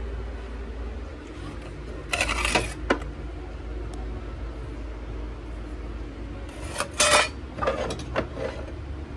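Small hard objects clinking and knocking together in two short clusters, one about two seconds in and a longer one around seven to eight seconds in, over a low steady room hum.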